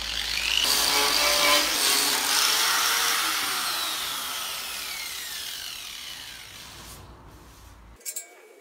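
Angle grinder with an aluminium oxide disc grinding rusty steel chassis rail back to the factory undercoat. It is switched off after about three seconds, and its whine falls steadily as the disc spins down.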